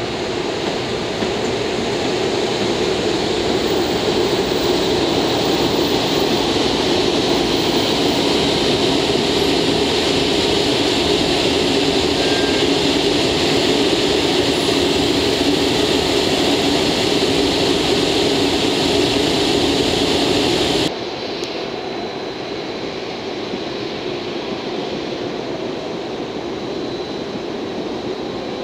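EF510 electric locomotive running with a loud, steady hum and hiss that swells over the first few seconds, then drops suddenly to a quieter steady hum about three-quarters of the way through.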